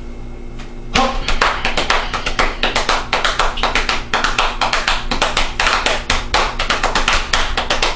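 Fast, even rhythm of sharp percussive taps keeping time for a folk song, starting about a second in.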